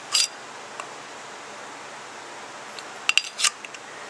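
Metal parts of a Carter mechanical fuel pump clicking and clinking as they are handled: a short rattle right at the start, then a quick cluster of sharp clicks about three seconds in, as the diaphragm's pull rod is hooked onto the rocker arm.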